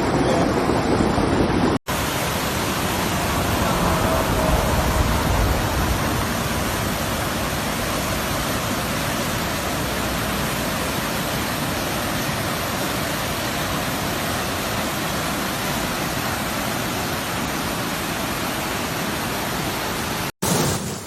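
Swollen river or stream in flood, its water rushing as a steady noise with no break, cut off abruptly twice by splices, about two seconds in and just before the end.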